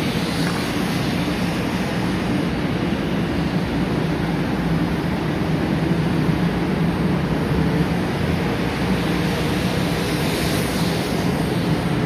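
500 Series Shinkansen train pulling out of the station and gathering speed past the platform: a steady rush of wheels and running gear with a low hum underneath.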